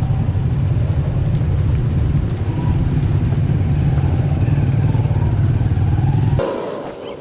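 Steady low rumble of a motor vehicle on the move, stopping abruptly near the end.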